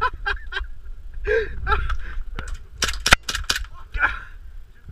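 Airsoft guns firing a string of sharp, irregular single shots, the loudest about three seconds in, with short shouted exclamations between them.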